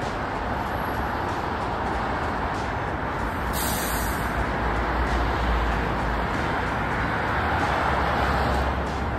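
Steady traffic noise of cars and buses on a multi-lane city road below: tyre and engine hum, with the rumble growing a little louder in the second half and a short hiss about three and a half seconds in.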